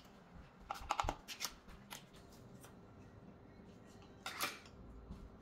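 Faint scraping and light clicks of a spoon scooping brown sugar from a jar into a plastic measuring cup, in a cluster about a second in and another short burst near the end.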